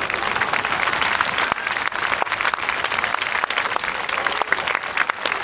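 Large crowd of spectators applauding: a dense patter of many hands clapping that swells at the start and then holds steady.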